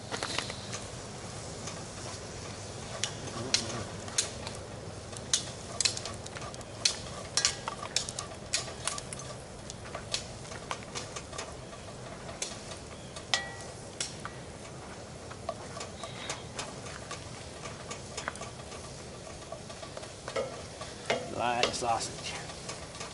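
Sausage sizzling in a skillet on a camp stove, with a spatula scraping and tapping the pan in frequent sharp clicks as it is stirred.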